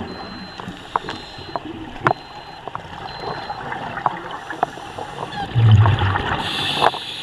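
Underwater sound around a scuba diver: a steady watery hiss with scattered small clicks. About five and a half seconds in comes a loud, low gurgling burst of exhaled regulator bubbles.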